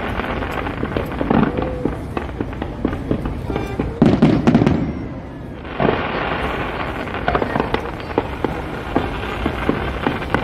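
Fireworks going off: long stretches of dense crackling studded with sharp bangs, and a heavy low boom about four seconds in.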